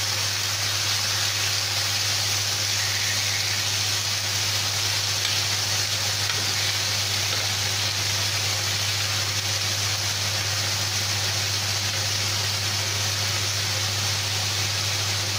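Chicken breast fillets sizzling steadily in hot olive oil in a grill pan, over a steady low hum.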